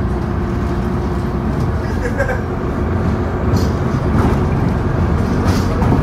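Inside a moving city bus: steady low engine and road rumble.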